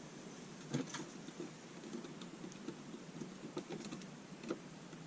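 Light, irregular clicks and ticks of stripped electrical neutral wires being handled and twisted together by hand, with a sharper click about three-quarters of a second in and another about four and a half seconds in.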